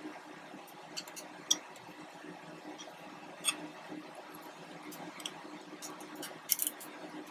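Scattered small metallic clicks and ticks of small screws and hand tools being handled while the retaining screws of a laser engraver's X-axis motor are taken out, with a quick cluster of clicks near the end. A faint steady hum sits underneath.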